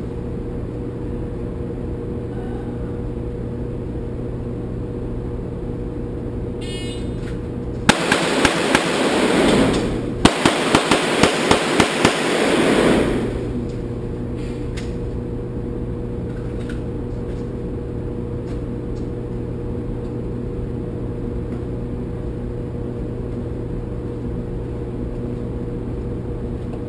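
A shot-timer beep, then a Smith & Wesson M&P Pro pistol fired rapidly in two strings of shots with a short break between them for a quick reload. The shots echo heavily in an indoor range over a steady ventilation hum.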